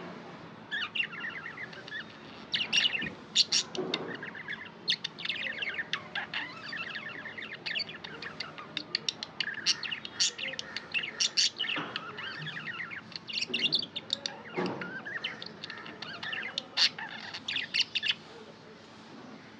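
Budgies chirping and warbling in quick runs of short, high chirps, which stop near the end.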